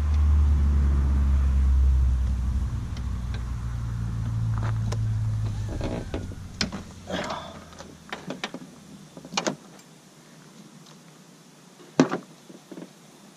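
A loud, low, steady drone that fades away over the first six seconds or so. Then scattered light clicks and clinks of hands and a tool working at a car's brake master cylinder fittings, with one sharp click about twelve seconds in.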